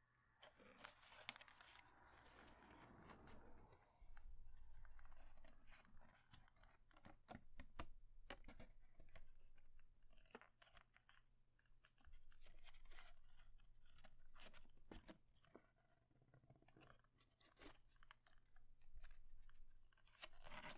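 Faint rustling and crinkling of a sheet of grid paper being handled and creased as a paper airplane is folded, with many short crackles.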